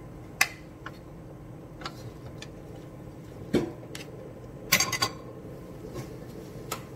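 Wooden spatulas stirring vegetables in a metal wok, scraping and knocking against the pan: single sharp knocks now and then and a quick run of knocks about five seconds in.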